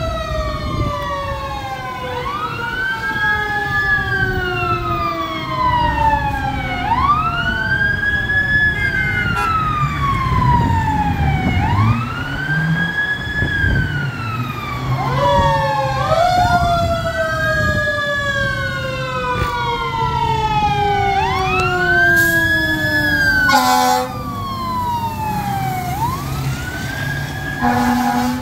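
Fire engine siren wailing, rising and falling over and over about every four to five seconds. A second siren tone slides slowly downward beneath it through the first half, and a diesel engine rumbles low underneath. A short air-horn blast sounds about three-quarters of the way through, and another starts at the very end.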